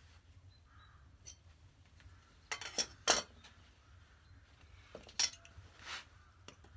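A metal combination square and other hand tools clinking and tapping on birch plywood as the pieces are marked out: three sharp clinks close together around the middle, the last the loudest, and two more near the end.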